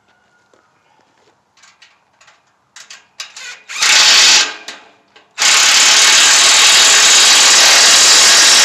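Cordless power driver running on a bolt of a steel hay ring: a short burst about four seconds in, then a longer steady run of about three seconds that continues to the end. Light clicks and taps come before it.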